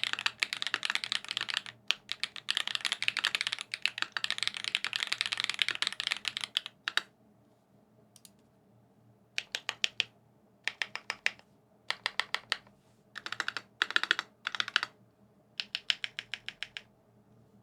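Typing on a custom TX Classic TKL mechanical keyboard with lubed SWK X OUTVA Black tactile switches, a PVC plate and GMK keycaps. Fast continuous typing runs for about seven seconds, then gives way to short runs of quick keystrokes separated by pauses.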